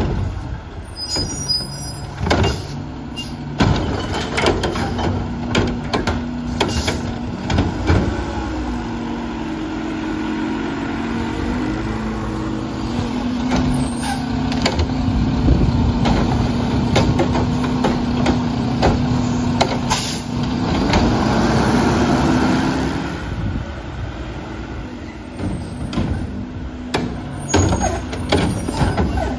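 Front-loading garbage truck with a Curotto-Can automated arm at work: the diesel engine holds a steady raised drone through the middle as it drives the hydraulics, with repeated sharp clanks and knocks from the can and arm.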